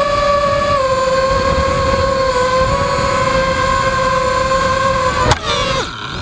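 Armattan Chameleon FPV quadcopter's brushless motors and propellers whining at a steady pitch. About five seconds in there is a sharp click, and the whine then swings and falls in pitch.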